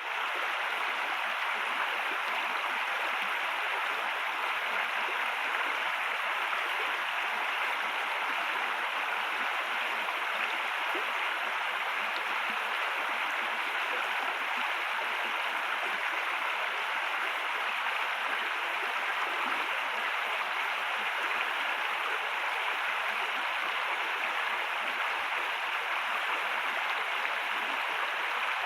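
River water flowing: a steady, even rush of running water that holds constant throughout.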